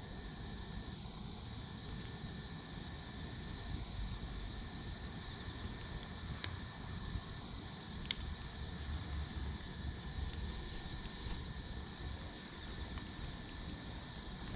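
Outdoor campfire ambience: a few sharp crackles from the wood fire over a low steady rumble, with insects chirping in a repeating pattern and a steady high insect drone.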